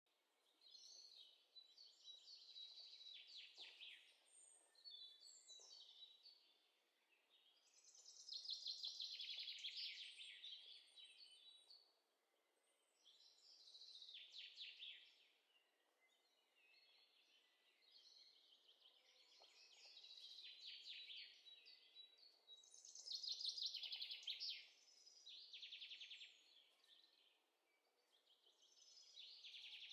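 Faint birdsong: a string of rapid, high trilling phrases, each a couple of seconds long, with short pauses between.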